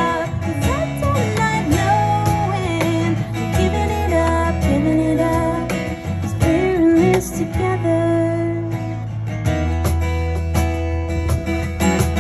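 A live acoustic duo: a woman sings over her own strummed acoustic guitar, with a cajón keeping a steady beat.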